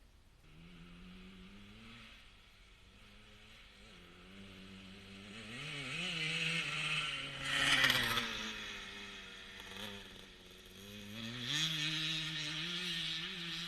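1977 Honda CR125 Elsinore's single-cylinder two-stroke engine running on a new HPI ignition, revving up and down several times and loudest a little past halfway. The owner hears it stutter at times and puts that down to an exhaust leak rather than the ignition.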